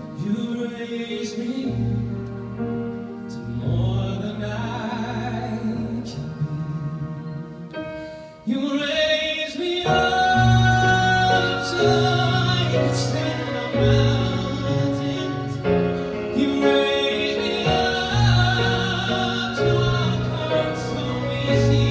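A male classical-crossover singer sings into a microphone with grand piano and string quartet accompaniment. The music starts softly, then grows louder and fuller about eight seconds in.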